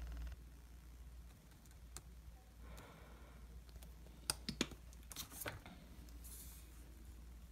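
Quiet handling of a squeeze tube of yellow paint as it is pressed onto a coin and lifted away: a faint soft rustle, then a handful of sharp clicks about four to five and a half seconds in. A low steady hum cuts off just after the start.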